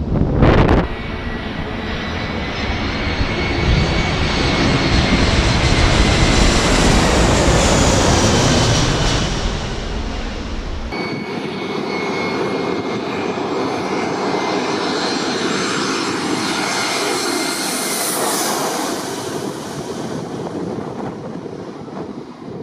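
Jet airliner engines passing close by: a loud rush with a high whine that swells and then slides down in pitch. About halfway through it cuts abruptly to a thinner stretch of jet noise with a steady whine.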